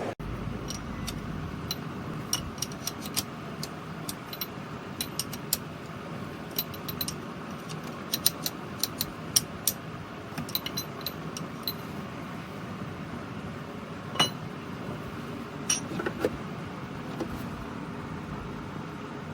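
A run of light, sharp metallic clinks and taps, as of hand tools handled against metal parts, thickest in the first half, with two louder knocks later on, over a steady background hiss.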